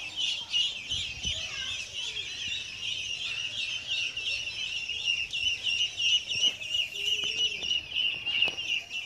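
A large brood of ducklings peeping together: a fast, continuous, high-pitched cheeping chorus with no break.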